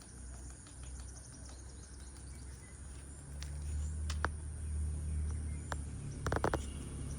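Outdoor ambience: a low steady rumble that grows louder about three seconds in, with scattered sharp ticks and a short rapid chirping burst near the end.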